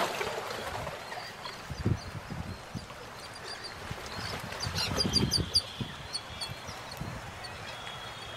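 Outdoor ambience with a small bird chirping, a quick run of short high notes about halfway through, over scattered low thuds.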